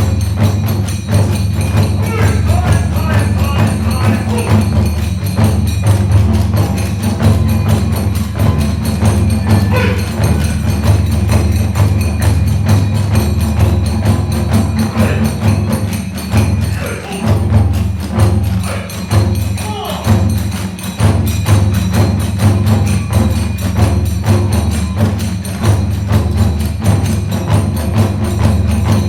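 Kagura hayashi ensemble playing a fast, driving rhythm: big and small taiko drums, tebyōshi hand cymbals clashing and a bamboo fue flute playing a wavering melody on top.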